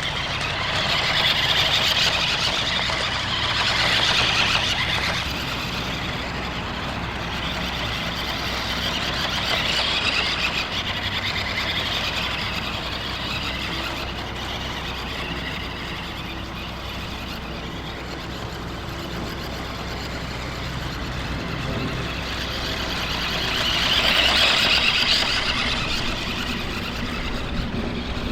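Remote-control toy monster truck's electric motor running as it drives, with a whirring noise that swells louder a few times.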